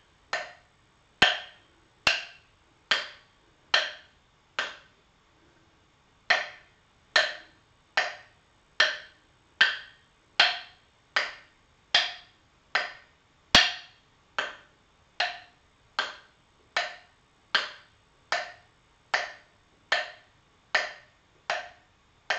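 Two wooden sticks struck together in a steady rhythm: a sharp wooden clack about every 0.8 seconds, with one short pause about five seconds in.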